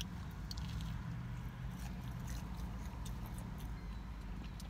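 A person chewing a mouthful of breaded fish sandwich, with small wet mouth clicks scattered through, over a steady low hum.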